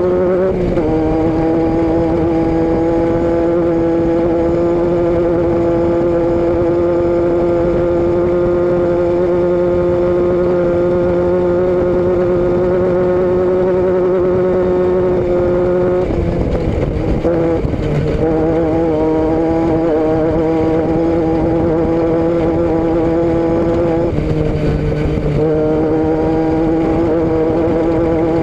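A vehicle engine running at a steady, high note. A little over halfway through it briefly falters and drops in pitch, then settles again, with another short dip in pitch near the end.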